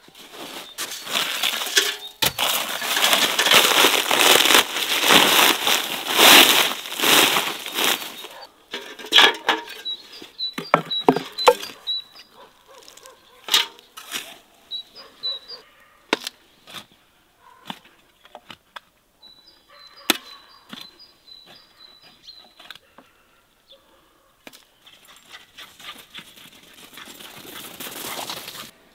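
A shovel digging and scraping through peat, loud gritty scoops for the first several seconds, then a few separate knocks and clatters. Later come two spells of short high chirps, and a hiss that swells near the end.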